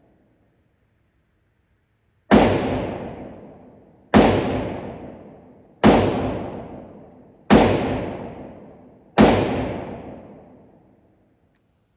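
Five gunshots fired one at a time, about every one and a half to two seconds, each followed by a long fading echo.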